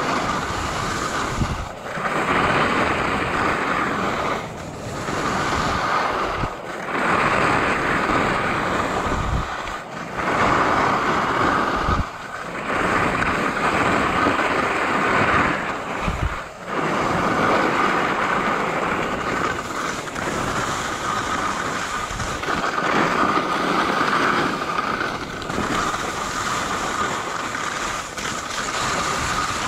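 Skis scraping over hard-packed groomed snow: a loud rushing scrape that swells through each turn and drops briefly between turns, every two to four seconds, with wind noise on the microphone.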